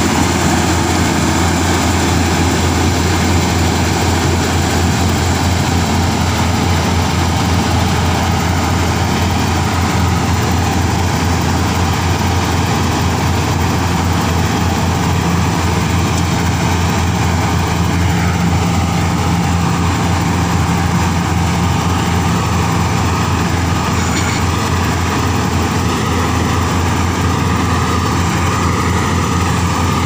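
New Holland combine harvester running steadily while it cuts and threshes standing wheat: a loud, even engine drone with a strong low hum and the rush of the threshing works, blowing chaff out the back.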